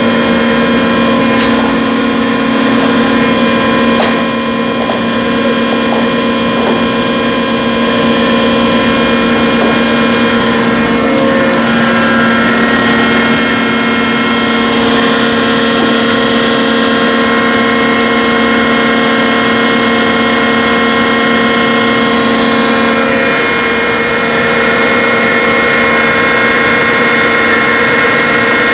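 Underground core-drilling rig running: a loud, steady machine drone with several held tones that barely change in pitch.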